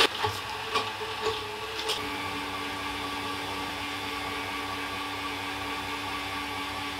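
Countertop jug blender running, blending a thick protein shake with ice cubes. A few knocks come in the first two seconds, then it settles into an even, steady hum.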